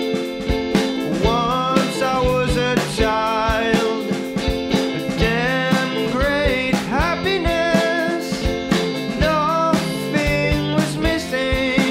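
A band playing a song with guitar and regular drum hits, over which a melody line slides and bends between notes.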